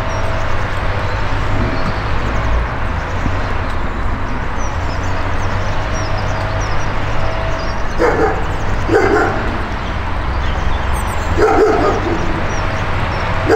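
A dog barking and yipping in short bursts, several times in the second half, over a steady low rumble.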